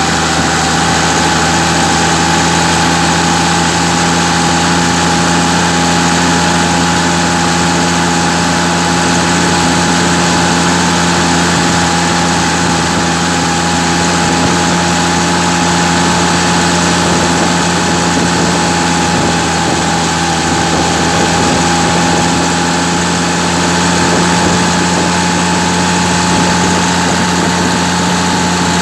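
Massey Ferguson 399 tractor's six-cylinder diesel engine running at a steady speed under way, with a thin high whine over the engine note. The sound holds even, with no change in speed or load.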